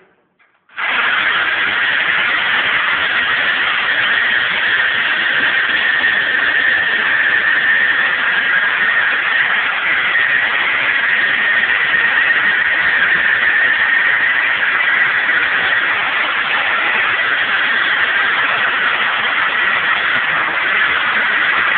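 Power tool cutting through the steel wall of a heating-oil tank: a loud, steady cutting noise with a high whine that starts about a second in and runs without a break.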